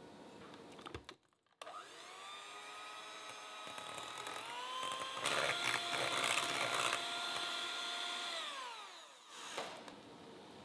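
Philips electric hand mixer beating butter-and-egg cake batter: the motor spins up with a rising whine, speeds up again a few seconds in and whirs louder as the beaters churn the batter, then winds down and stops near the end.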